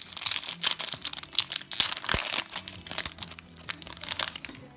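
Foil wrapper of a Yu-Gi-Oh! booster pack crinkling and being torn open, a dense run of crackles that stops near the end.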